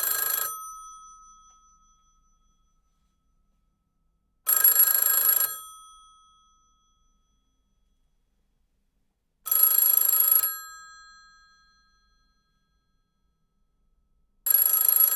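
Old telephone bell ringing in bursts of about a second, about every five seconds, each burst leaving a ringing tone that fades away.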